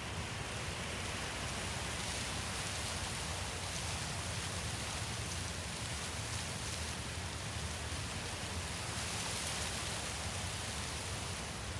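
Steady, even hiss like falling rain, with a low steady rumble underneath.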